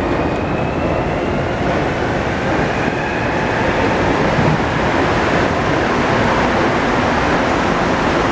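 A CNIM escalator running while being ridden, a steady loud mechanical rumble. A faint whine rises slightly in pitch over the first few seconds.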